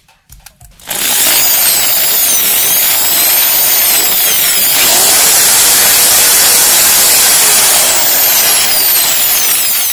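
VI-POWER 550 W corded impact drill switched on about a second in and running free in the hand, no bit in work. Its motor whine rises and falls in pitch several times as the trigger speed changes, holding steady at high speed through the middle.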